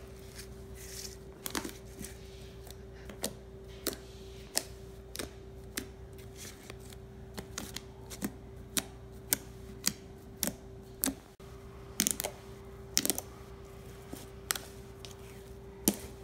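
Fluffy slime made of school glue and shaving cream being kneaded and pressed by hand, giving off irregular sharp pops and clicks as trapped air pockets burst, roughly one or two a second and coming more often near the end. A steady faint hum runs underneath.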